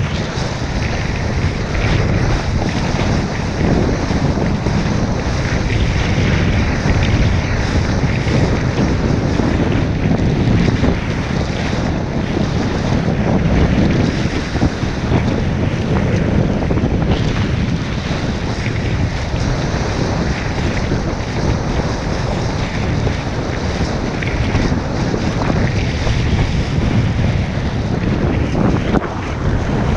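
Wind buffeting an action camera's microphone while kitesurfing at speed, a steady loud rush, mixed with the hiss and splash of the board cutting through the water.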